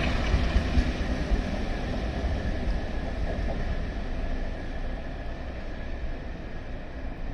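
Class 33 diesel locomotive's Sulzer eight-cylinder engine and train pulling away, a steady low rumble that fades as the train draws off into the distance.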